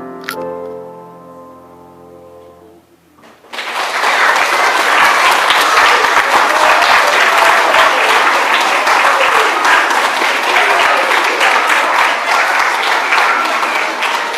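The last notes of a children's choir song fade away, then an audience starts clapping suddenly about three and a half seconds in and keeps up loud applause.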